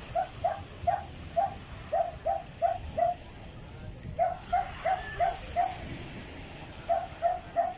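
A dog barking in three quick runs of short, high-pitched barks, about three a second, with brief pauses between the runs.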